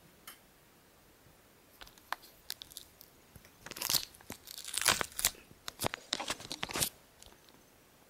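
Handling noise: a few sharp clicks about two seconds in, then several seconds of dense rustling and crackling, tailing off into a few more clicks.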